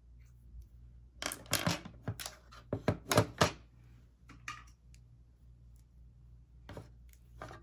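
Small clicks and knocks of makeup tools and containers being handled, a quick cluster of them in the first half and a few single ones later, over a faint steady low hum.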